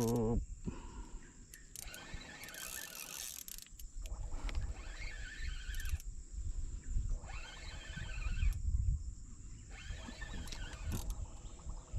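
Repeated wild animal calls, each lasting about a second with short gaps between, over a low rumble and a faint steady high tone.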